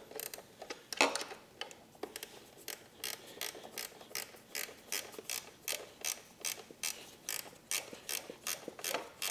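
A 10 mm ratcheting wrench clicking as it tightens the bolt holding the ring terminals to a battery's side-post terminal: a few uneven clicks at first, then a steady run of about three clicks a second.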